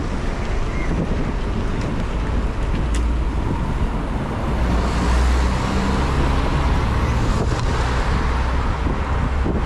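Wind rushing over the microphone of a camera on a moving road bike, with a car's engine and tyre noise swelling from about halfway through as it passes the bike.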